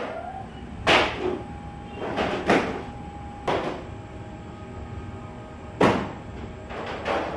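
Rotary rack baking oven running with its door shut: a steady low rumble, broken by sharp knocks every one to two seconds.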